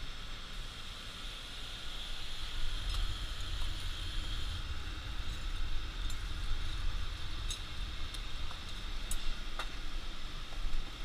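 Knife-making forge burning with a steady rushing noise over a low rumble, with a few light metallic clinks of tongs and steel in the second half.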